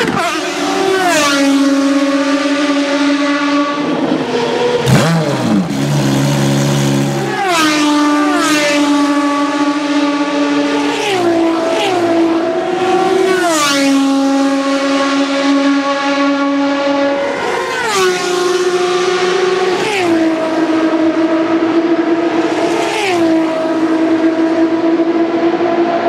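V12 engines of Ferrari FXX Evolution track cars at high revs as the cars pass at speed. The engine note holds steady and then drops sharply, again and again, with a bright rasp at several of the drops.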